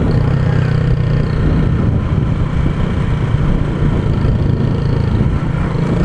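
Honda CG Titan 150 motorcycle's single-cylinder four-stroke engine running steadily while riding, with wind and road noise.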